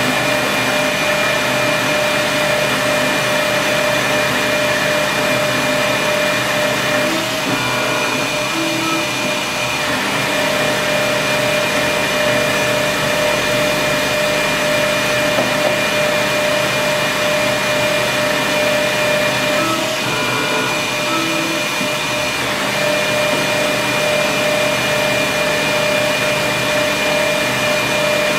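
Metal lathe running an automatic internal-turning cycle: a steady motor hum and whine as the boring tool cuts inside a spinning tube. Twice, about 7 and 20 seconds in, the steady tone breaks off for two or three seconds with a few short higher tones while the carriage moves between passes.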